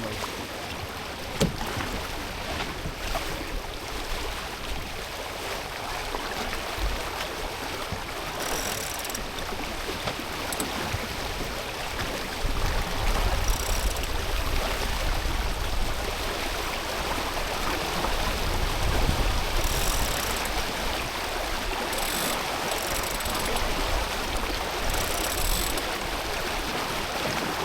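Water rushing along a sailboat's hull under way, with wind buffeting the microphone from about 12 to 20 seconds and a few short hissing bursts of spray.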